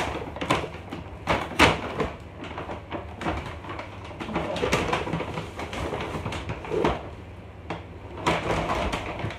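Brown paper gift bag crinkling and rustling as it is handled and opened and a cardboard box is pulled out of it, with irregular short knocks and bumps. The sharpest knocks come right at the start and about a second and a half in.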